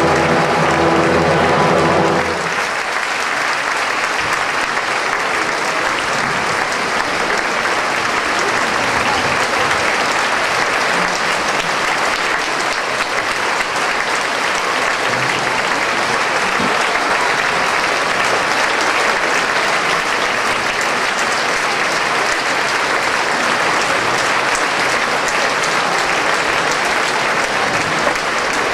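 The orchestra's closing chord is held and then cuts off about two seconds in. Steady applause from a large theatre audience follows.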